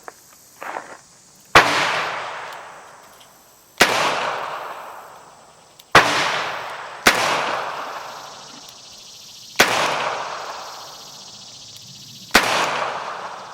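Six shots from a Smith & Wesson Model 17 .22 rimfire revolver, fired at an uneven pace a second to three seconds apart. Each sharp crack is followed by a long echo that fades over about two seconds.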